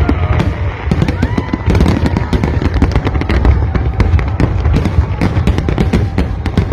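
Large fireworks display: a dense, continuous barrage of cracks and bangs over a deep rumble of booming shells.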